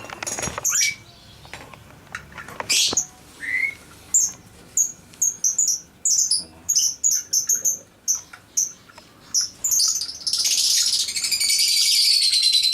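A small bird chirping over and over in short high notes about twice a second, breaking into a fast, continuous trill near the end. A few sharp clicks and knocks come in the first few seconds.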